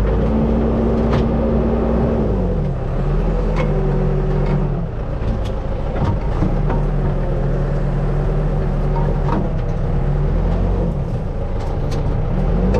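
Backhoe loader's diesel engine running as it works, its pitch dropping about two seconds in and climbing again near the end, with occasional sharp knocks.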